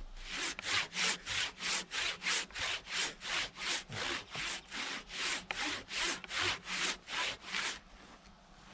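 Handsaw ripping lengthwise through a log, a steady back-and-forth rasp of about two to three strokes a second. The sawing stops about a second before the end.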